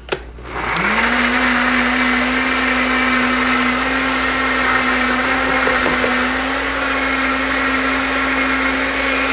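Countertop blender switched on with a click, its motor spinning up within a second and then running steadily, blending avocado, lime juice and water into a creamy dressing; it winds down at the end.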